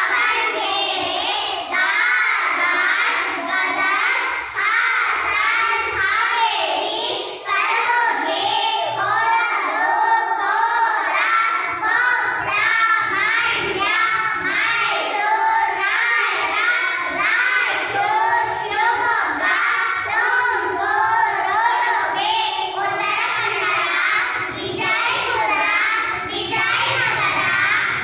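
A group of young girls chanting in unison, reciting the district names of Karnataka one after another in a steady, sing-song rhythm.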